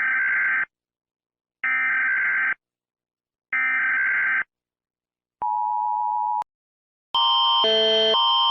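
Emergency Alert System SAME header: three identical buzzy digital data bursts, each just under a second long and about a second apart. They are followed by a steady two-note attention tone lasting about a second. About seven seconds in, a sustained chiming multi-note tone begins.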